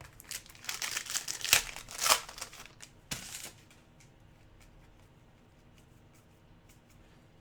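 Trading card pack wrapper crinkling and tearing as it is opened, a flurry of rustles and crackles in the first three and a half seconds, then only faint room noise.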